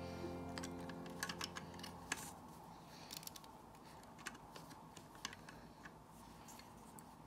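Faint, irregular small plastic clicks of LEGO pieces being handled and pressed together. Background music fades out over the first two seconds.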